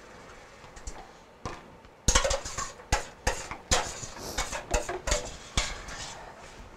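Metal slotted spoon scraping and clinking against a stainless steel pot while ground beef is scooped out. The clinks and scrapes come in a quick, irregular string starting about two seconds in.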